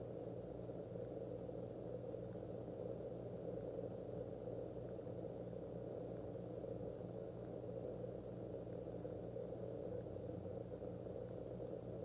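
Steady room tone: a constant low hum with a faint hiss under it, unchanging throughout.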